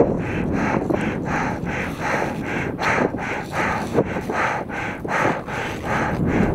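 A climber breathing hard and fast from exertion at high altitude, about three breath sounds a second, over wind on the microphone.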